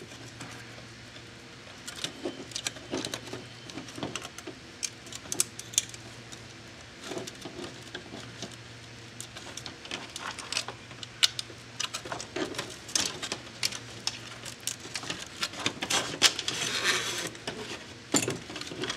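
Plastic housing parts and wire-harness connectors of a bill validator handled by hand: scattered light clicks and taps, with a rustling scrape near the end, over a steady low hum.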